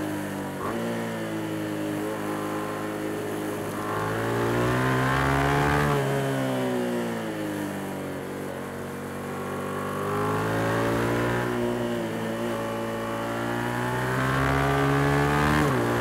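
Yamaha MT-07 (FZ-07) 689 cc parallel-twin engine under way, revs climbing steadily under throttle and then dropping away sharply, three times over.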